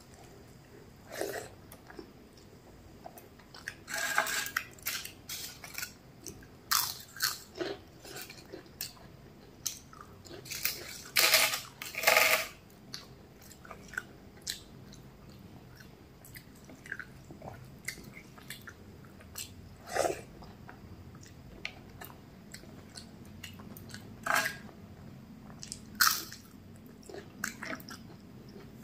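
Close-miked eating by hand: chewing and biting mouthfuls of rice, with fingers squishing and mixing rice and potato curry on a plate. The sounds come in irregular bursts, loudest about eleven to twelve seconds in.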